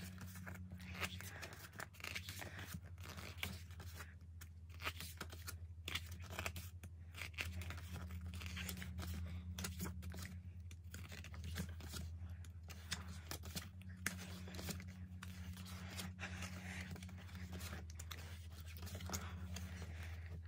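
Pages of a small glossy album photo book being turned and handled: irregular paper rustles, flicks and soft scrapes all through, over a steady low hum.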